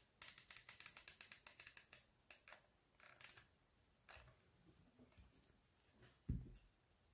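Hot glue gun being squeezed, its trigger giving faint rapid clicking, about ten clicks a second, for the first two seconds, then a few scattered clicks. A dull thump about six seconds in as the glass jar is handled.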